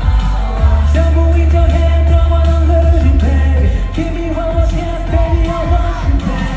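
Pop song played live over a loud sound system, with long held sung notes over heavy bass. The music stops near the end.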